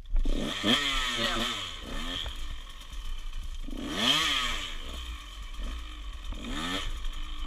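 Small dirt bike engine running, revved up and back down three times: near the start, about four seconds in, and near the end.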